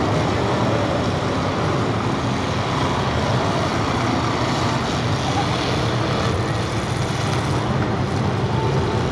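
Many demolition derby car engines running together on the arena floor, a steady, dense mechanical din with no single crash standing out.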